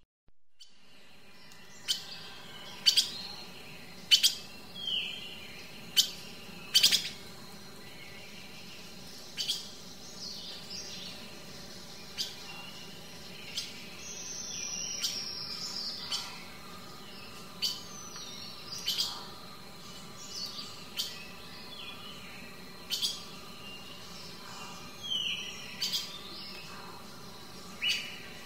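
Sharp, high-pitched chirping calls, one or two every second or so, with a few short falling whistles, over a faint steady hum.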